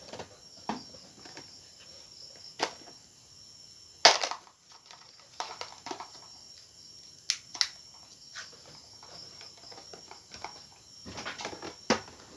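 Scattered sharp clicks and knocks from things being handled, the loudest about four seconds in and a small cluster near the end, over a faint steady high-pitched insect drone.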